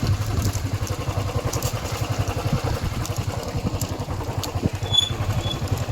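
Motorcycle engine running steadily, a fast low pulsing rumble.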